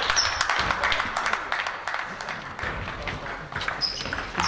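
Table tennis ball clicking off the table and bats, with short high pings near the start and again near the end as a rally gets going, over steady sports-hall background noise.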